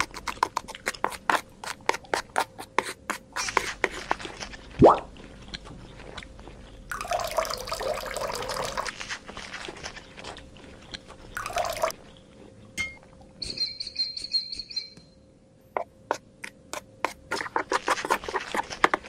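Small metal trowel scraping and tapping through dry cement powder on a board in quick strokes, with one louder knock. Water is then poured from a tiny metal bucket onto the cement, and the trowel scrapes through the wet mix near the end.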